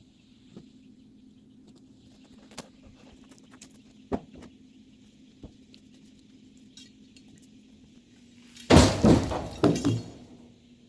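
A faint steady hum with a few scattered ticks and one sharp knock, then a loud clatter of knocks and thuds lasting about a second and a half near the end.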